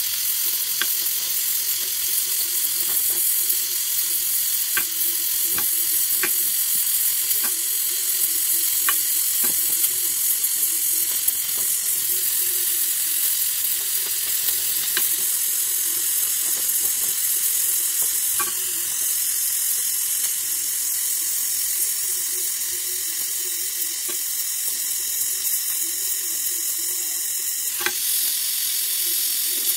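Gas welding torch flame hissing steadily against aluminium engine casing as filler rod is melted into the joint, with scattered sharp crackles.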